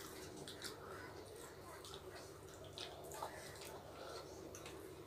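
Faint wet clicks and smacks of people eating rice and egg curry with their fingers: chewing, lip smacks and fingers mixing the rice.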